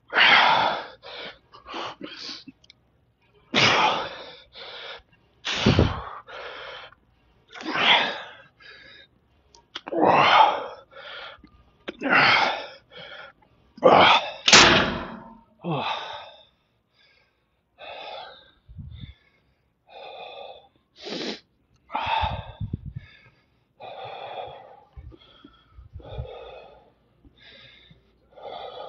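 A man's forceful breathing during a set of cable biceps curls: loud, sharp exhalations and gasps, often in pairs about every two seconds, with each rep. After about 16 seconds they give way to softer, irregular panting as he recovers.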